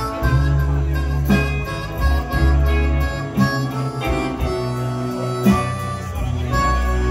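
Live blues band playing an instrumental break: harmonica and electric guitar over a steady bass line and drums, with a drum accent about every two seconds.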